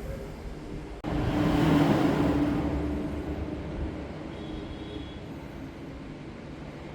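A road vehicle going past: a rumbling hiss that swells after a sudden break about a second in, then slowly fades, with a steady hum underneath.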